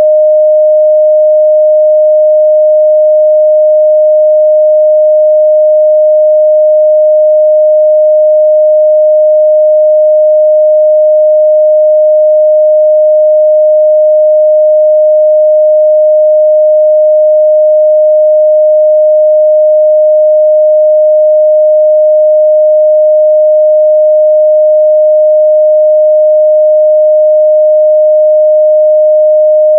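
A steady, loud 614 Hz sine-wave test tone, one pure pitch held without change.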